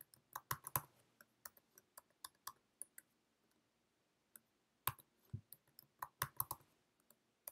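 Faint typing on a computer keyboard: runs of quick key clicks, with a gap of a couple of seconds near the middle before a second run.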